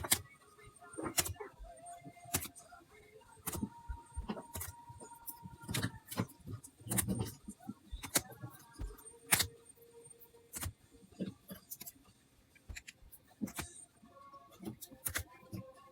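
Trading cards, packs and plastic card holders being handled, making irregular sharp clicks and taps.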